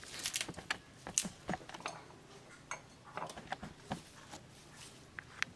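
Fresh coriander sprigs torn by hand and dropped into a stainless-steel mixer jar: a scatter of light, irregular snaps, crackles and rustles.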